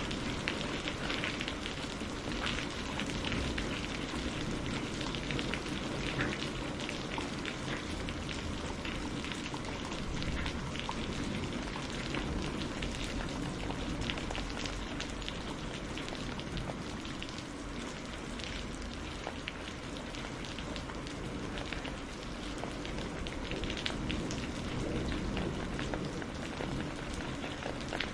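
Steady rain falling in a storm, thick with the patter of individual drops, over a low rumble.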